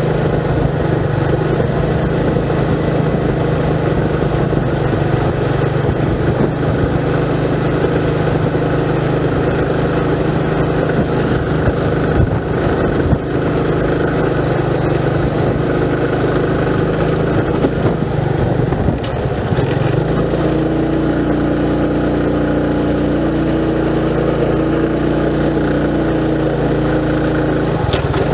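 Motorcycle engine running steadily while riding. Its note changes about twenty seconds in.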